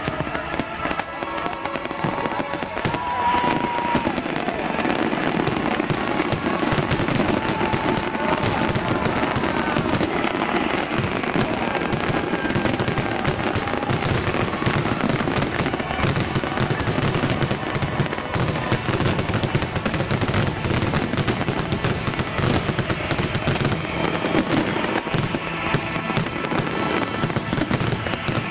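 A continuous, rapid barrage of fireworks bursts and crackles, with show music playing underneath.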